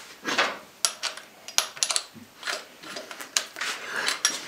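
Handling noise from a corded power drill and hand tools on a workbench: a string of sharp clicks, knocks and short rustles at uneven intervals, with the drill not running.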